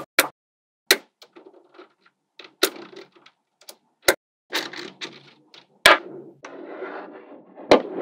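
Small magnetic balls clicking and clattering as hands press, lift and set down panels built from them: about six sharp clicks, with light rattling of the balls between them, most of it in the second half.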